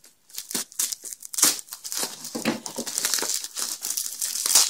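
Bubble wrap and plastic packing tape crinkling and tearing as hands pull a padded parcel open, a dense run of irregular crackles that gets busier about a second and a half in.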